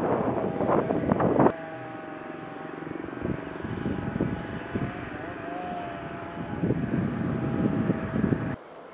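Loud rustling with sharp crackles for about the first second and a half, then a steady engine drone with a held pitch that wavers briefly midway, cut off abruptly near the end.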